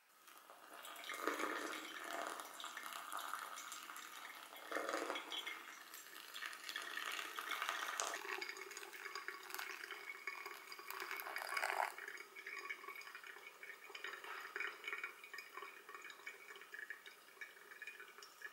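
Hot water poured in a thin stream onto coffee grounds in a paper-lined pour-over cone dripper, splashing and trickling, with brewed coffee dripping into the glass server below.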